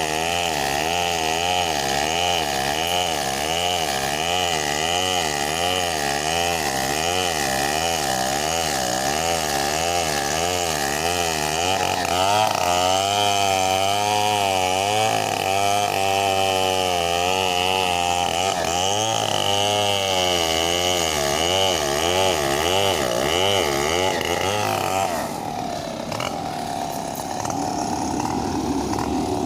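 An engine running steadily, its pitch wavering up and down about twice a second; about 25 seconds in it drops abruptly to a quieter, lower sound.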